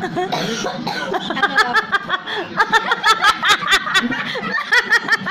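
People laughing in quick, repeated bursts.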